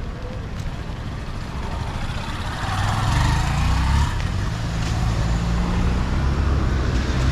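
Road traffic passing close by: engine rumble and tyre noise, growing louder about two and a half seconds in as a vehicle goes past.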